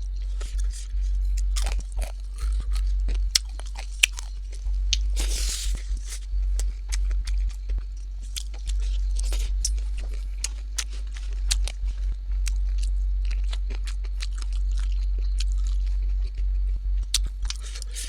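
Close-up chewing and crunching of food, with many short crisp clicks and a longer rustling crunch about five seconds in, over a steady low hum.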